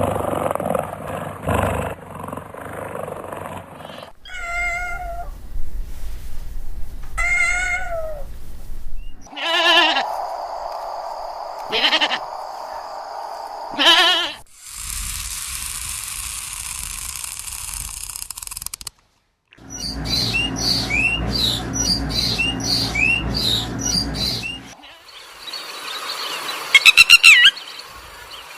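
A series of farm-animal calls in separate short clips: two drawn-out bleating calls, three loud calls, a steady hiss lasting several seconds, a run of rapid bird chirps, and loud calls again near the end.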